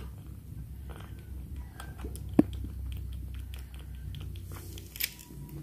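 Kitten suckling milk from a feeding bottle: small, irregular wet sucking and smacking clicks, with two louder clicks, one about two and a half seconds in and one near five seconds.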